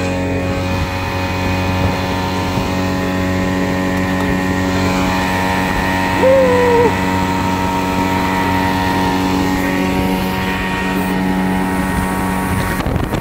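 A speedboat's outboard motor running steadily at speed, a stack of even engine tones holding a constant pitch. About halfway through, a short wavering call of about half a second rises briefly above the engine.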